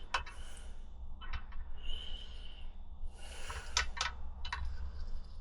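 Small clicks and light rattles of a motorcycle turn signal's nut, washer and bracket being handled and fitted by hand, with brief rustles of the wiring between them.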